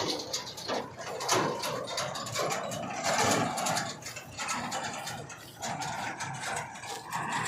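Working heavy machinery, most likely a JCB 3DX backhoe loader, with its engine running under many irregular sharp clanks and rattles.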